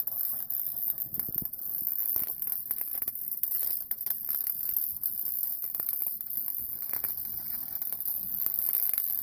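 Electric arc welding on a truck's steel exhaust pipe: the arc crackles steadily with irregular sharp pops.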